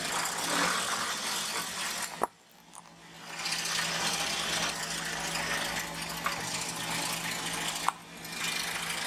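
A car rolling slowly forward with its engine running, a low steady hum under a steady rough noise as the tyre moves over crayons on concrete. The noise cuts off suddenly about two seconds in and returns about a second later.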